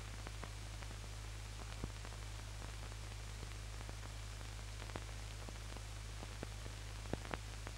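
Steady hiss with a low hum and scattered faint clicks and pops, a couple of them a little louder near the end: the surface noise of an old 1970s film soundtrack with no programme sound on it.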